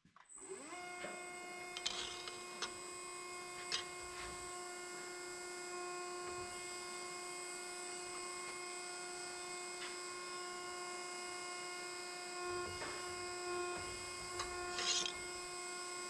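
Steady electric machine hum with a pitched whine, starting abruptly and running on, with a few light clicks and knocks of work on a metal bracket.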